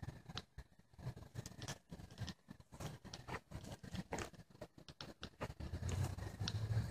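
Footsteps on dry ground at night, an irregular run of small crackles and scuffs. Near the end a low steady hum, like a distant car engine, comes in.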